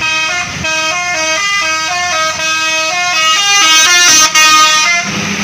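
Musical 'telolet' horn of a bus playing a quick tune of stepped notes for about five seconds. It is loudest near the end and cuts off abruptly.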